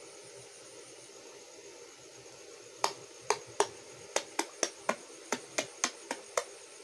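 A hand slapping and flicking at the surface of shallow water, about a dozen sharp wet slaps at roughly three a second, starting about three seconds in.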